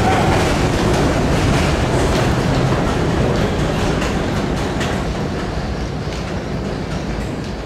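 R62A subway train pulling away on elevated steel track, a steady rumble with its wheels clicking over the rail joints, fading slowly as it recedes.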